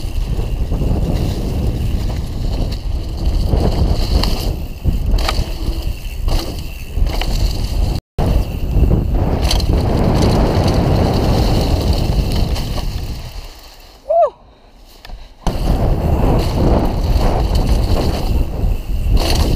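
Mountain bike (Mondraker Dune RR) ridden fast down a dirt trail: tyres rolling and rattling over the ground, with heavy wind rumble on the mounted action camera's microphone. The sound cuts out for an instant about eight seconds in, then goes much quieter for a couple of seconds past the middle, with a short gliding tone, before the rumble comes back.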